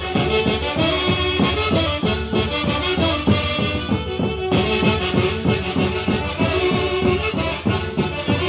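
Instrumental band music with no singing: a steady, quick bass beat under a held melody line.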